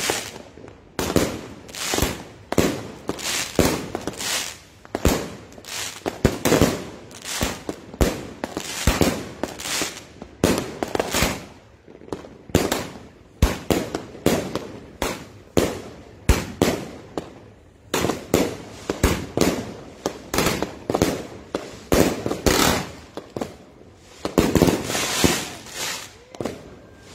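Consumer fireworks cake firing shot after shot: a rapid, continuous run of launch thumps and aerial bursts, with a few short pauses between volleys.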